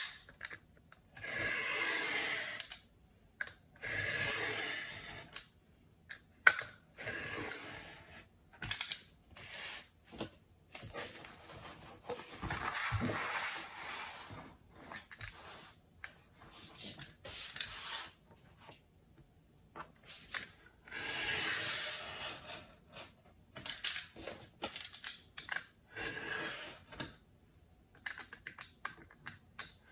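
Tool drawn along a plastic ruler across watercolour paper: a series of scraping strokes, each about one and a half seconds long, with shorter scrapes and small knocks of the ruler and tool between them.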